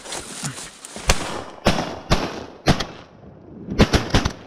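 Several shotguns firing in quick succession at ducks flying over the river, about seven sharp shots, the last few close together from more than one gun.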